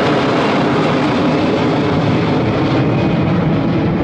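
Airbus A321's twin CFM56-5B turbofan engines at climb power just after takeoff: a steady, loud jet roar, its high hiss dulling near the end as the aircraft moves away.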